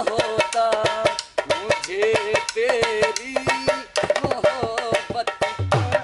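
Dholak played by hand in a fast, dense rhythm of strokes, with a wavering melody line over it; the drumming drops away briefly twice.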